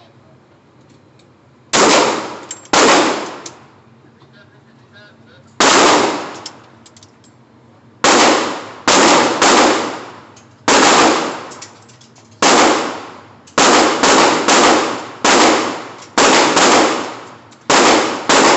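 A series of gunshots fired at a shooting range, each a sharp crack with a short reverberant tail. The first few come several seconds apart, then from about eight seconds in the shots come faster, roughly one or two a second.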